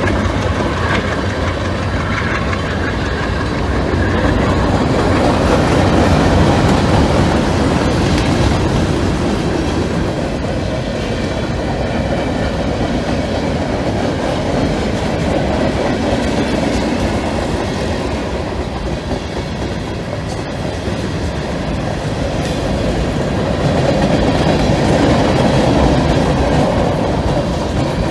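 Cincinnati Eastern Railroad freight train's cars rolling past on the track, a continuous steady rumble with the clatter of wheels on rail.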